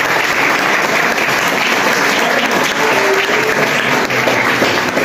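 Small audience clapping steadily, a dense run of applause.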